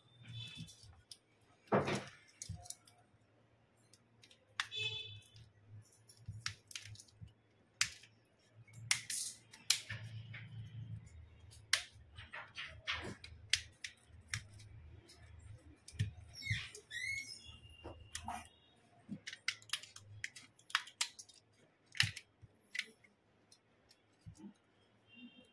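Irregular clicks, taps and light scrapes of a smartphone being handled and pried apart by hand: plastic pry tool, frame and display parts knocking and snapping against each other and the bench, with a brief squeak about two-thirds of the way through. A low hum comes and goes in the background.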